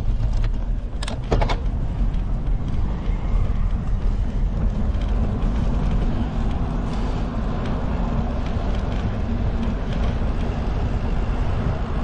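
Riding a bicycle: a steady low rumble of wind on the microphone and tyre noise on the road, with a couple of sharp clicks about a second in.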